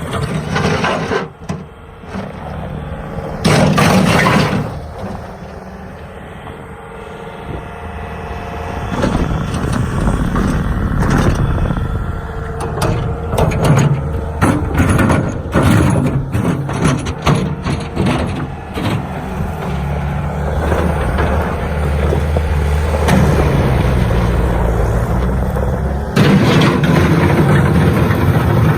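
Bobcat S250 skid steer's diesel engine running, with a loud burst of noise about four seconds in, a stretch of clanks and knocks in the middle, and a louder, steady run near the end.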